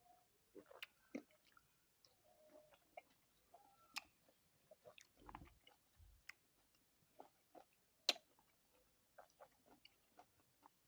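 A person chewing and biting into fruit close to the microphone: soft wet chewing with scattered sharp crunchy clicks, the loudest about eight seconds in.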